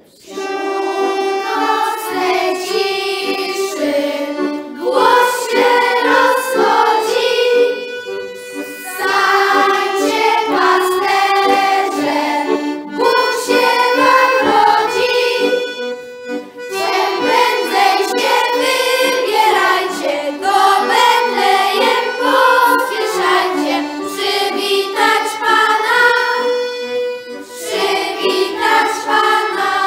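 Two piano accordions playing a folk-style tune in phrases with short breaks between them, with children singing along.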